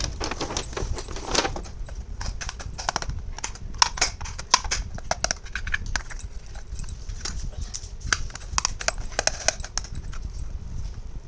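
Small hard plastic toy pieces being handled, clicking and clacking together in irregular taps, several a second.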